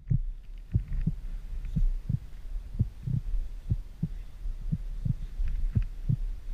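Heartbeat sound effect: a slow, regular double thump, about one beat a second, over a low steady hum.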